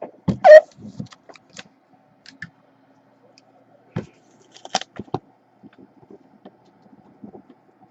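Cardboard card boxes and their case being handled and packed: scattered knocks, scrapes and rustles, loudest about half a second in and again around four to five seconds, over a faint steady hum.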